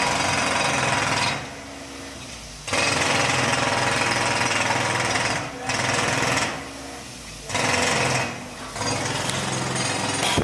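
Jackhammer pounding the floor in loud bursts of one to three seconds, stopping and starting again several times with short breaks between.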